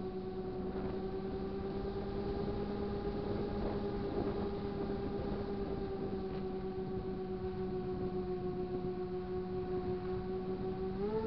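Model airplane's motor and propeller heard from on board: a steady whine over a rush of air noise, the pitch rising just before the end as the throttle is opened.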